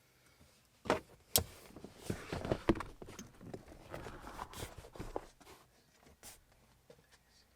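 Knocks and rustling from a car's rear seat being handled and moved: two sharp knocks about a second in, then a few seconds of bumping and scuffing, and one more knock near the end.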